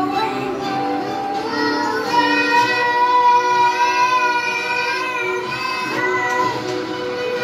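Music with a high voice singing a slow melody over it, holding long notes, including one sustained note in the middle.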